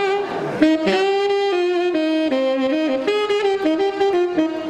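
Saxophone playing a melody solo, one held note after another, the pitch changing every third to half second, with a short break about half a second in.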